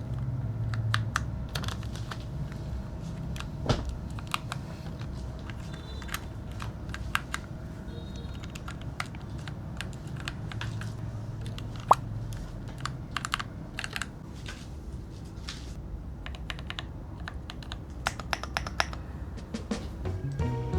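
Typing on a mechanical keyboard: a steady run of irregular key clacks, with one sharper click about twelve seconds in.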